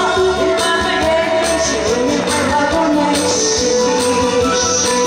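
A woman singing over a loud backing track with a steady beat, holding long wavering notes.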